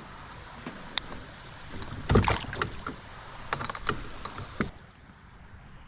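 Knocks and bumps on a kayak, the loudest about two seconds in, over a steady hiss that drops away near the end.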